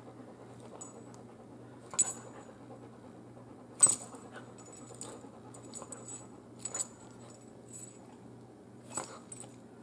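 Great Pyrenees puppy's collar tags clinking and its paws tapping on a hardwood floor in a few short, sharp bursts as it pounces and paws, the loudest about four seconds in, over a faint steady hum.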